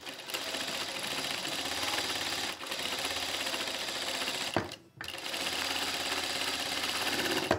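Juki DDL-900B industrial lockstitch sewing machine running steadily, stitching three layers of cotton through a gathering foot; it stops briefly about two-thirds of the way through, then starts sewing again.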